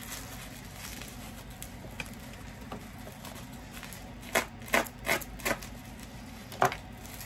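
Bubble wrap crinkling and crackling as it is handled, in a short cluster of sharp crackles a little past halfway, after a few seconds of faint room hum.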